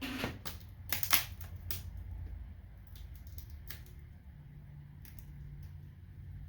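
Sharp plastic clicks and snaps from a Dell E5450 laptop's screen panel being pulled down out of its lid: a cluster of about five in the first two seconds, then a few fainter clicks later.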